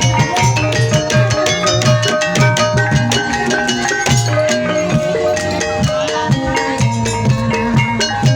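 Ebeg dance accompaniment music: steady, fast drumming with a deep drum pulse under repeated held pitched notes from tuned percussion, without pause.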